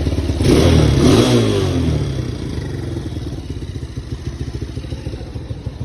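A 250 motorcycle engine running, blipped once about half a second in: it revs up sharply, falls back within about a second and a half and settles to a steady idle. The bike has just had a new carburettor fitted and been rejetted.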